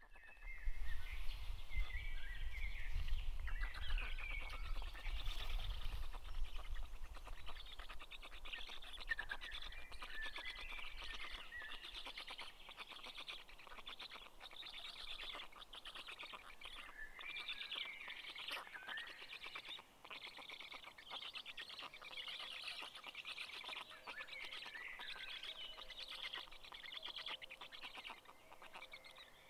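Small birds chirping and singing, many short calls overlapping, with a low rumble through the first ten seconds or so.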